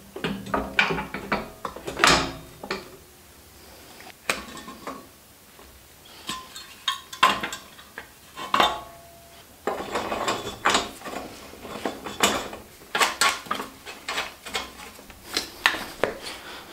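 Irregular metal-on-metal clinks and knocks of hand tools and bike parts being fitted during assembly. One clank rings briefly about eight and a half seconds in.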